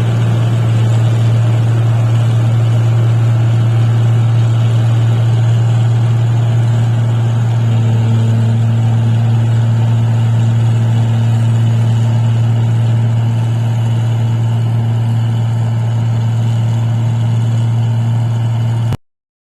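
Paddy machine's engine running steadily with a strong low hum; a second, higher tone joins about eight seconds in, and the sound cuts off suddenly near the end.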